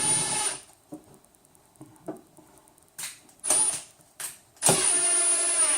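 Electric drill/driver driving a machine screw. It whines steadily and stops about half a second in, gives three short trigger blips around three to four seconds, then runs again from just before five seconds and winds down as it stops near the end.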